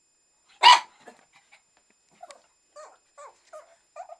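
Shih Tzu barking once, sharply and loudly, then several short, soft whines.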